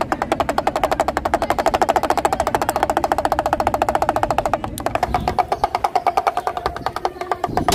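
Small hand-held damaru (pellet drum) twirled by hand, its bead strikers beating both heads in a fast, steady rattle of about ten strokes a second, each with a short drum tone. It stops briefly about five seconds in, then starts again and stops near the end.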